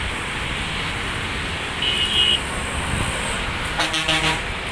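Steady outdoor engine and traffic noise. About two seconds in there is a short high-pitched tone, and near the end a brief horn-like toot.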